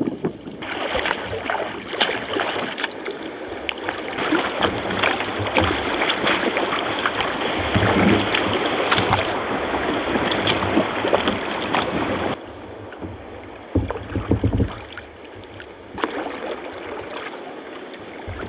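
Sea kayak paddling: paddle blades splashing and water sloshing around the hull, a dense hiss with scattered small splashes. The noise drops suddenly about twelve seconds in, leaving quieter water sounds and a couple of low thumps.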